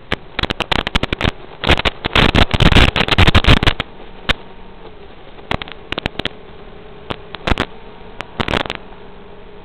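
Steady hiss with a faint hum on the audio of an analog FPV video feed, broken by a dense burst of loud crackling clicks from about one and a half to four seconds in and scattered sharp clicks after that.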